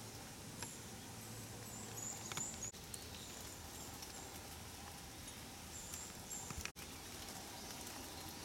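Small birds giving short, high, thin chirps again and again over a steady hiss of light rain, with a few sharp drops tapping on an umbrella.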